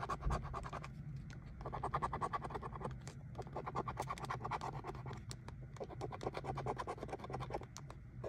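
A coin scratching the coating off a lottery scratch-off ticket in rapid back-and-forth strokes, pausing briefly every two seconds or so.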